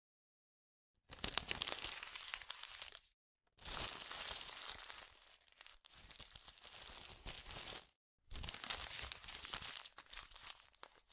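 Paper crumpling and tearing, in four crackly bursts of about two seconds each with short silences between them.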